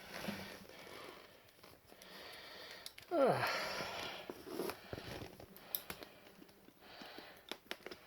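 Close handling noise of a small pocket knife, with quiet breathing and a groan-like voice that slides down in pitch about three seconds in, then a scatter of small sharp clicks near the end.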